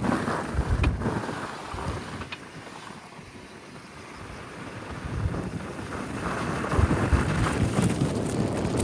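Nissan Juke on the move: road rumble with wind buffeting the microphone, quieter for a few seconds in the middle and building again afterwards, with two faint ticks early on.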